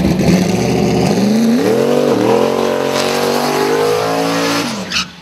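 A car engine revving hard: its pitch climbs, dips briefly about two seconds in, then holds high before falling away, with a sharp crack near the end.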